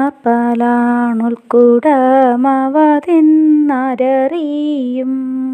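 A woman chanting a Malayalam poem as a slow, unaccompanied song, with long held notes that slide between syllables.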